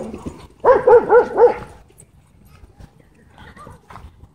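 A dog barking, four sharp barks in quick succession about a second in.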